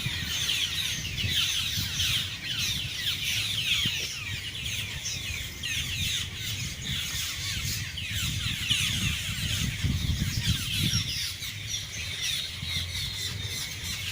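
A large flock of birds the uploader calls blackbirds, calling all at once: a dense, continuous chatter of short, falling, squeaky calls, with a low rumble underneath that swells about ten seconds in.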